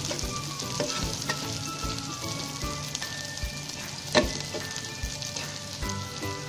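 Sliced onions sizzling in hot mustard oil in a pan while being stirred with a spatula, with one sharp knock about four seconds in.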